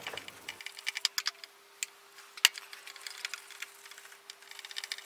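Light, irregular clicking and rattling of small tools and plastic being handled, a sharp click at the start and scattered clusters of ticks after it.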